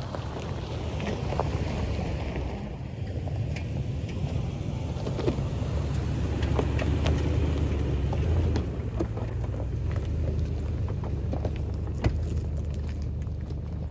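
2004 Lexus GX470 SUV driving slowly over a rocky trail: a steady low rumble, with scattered knocks and clicks from tyres on rock and a sharper knock about twelve seconds in.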